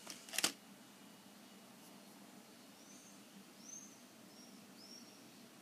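Small flush-cutter pliers being picked up off a table: a sharp clack about half a second in, followed by a few faint, short, high-pitched chirps.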